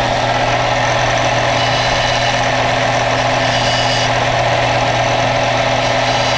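Bench combination belt-and-disc sander running steadily with a constant motor hum, as a small metal part is held against the spinning disc and ground down.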